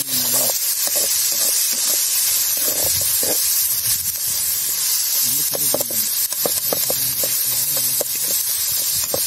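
Sliced onions and curry leaves sizzling in hot oil in an iron kadai, with a steady high hiss. A long metal spatula stirs them, scraping and knocking against the pan in short sharp strokes.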